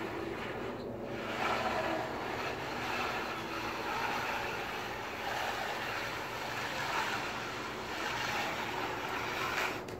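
Bull float's blade sliding back and forth over freshly poured wet concrete: a steady rushing swish that swells every second or two with the strokes.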